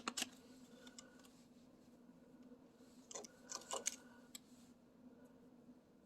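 Faint clicks and taps of small objects being handled, with a cluster about three to four seconds in, over a low steady hum.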